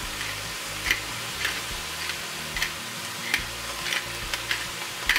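Ground chicken, bell pepper and onion sizzling steadily in a stainless steel frying pan, with a series of short crunching clicks from a hand-twisted pepper grinder over the pan.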